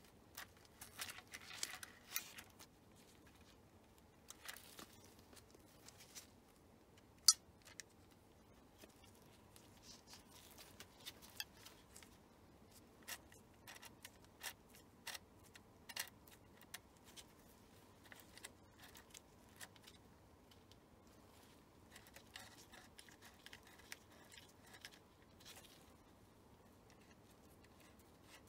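Rolleiflex 2.8F twin-lens reflex camera being worked by hand: a short ratcheting rasp of the film-advance crank near the start, one sharp, loud click about seven seconds in, and many small clicks as the aperture and shutter-speed wheels are turned through their settings.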